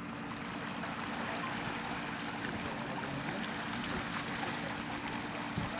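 Pond water churning and splashing around a car's submerged front as the car is dragged up out of the water, over the steady hum of an engine running.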